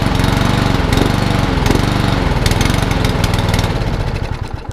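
Mountfield SP454 lawnmower's petrol engine running, then dying away and cutting out near the end as it comes off choke. The engine will only run on choke, which the mechanic puts down to a carburettor needing a clean.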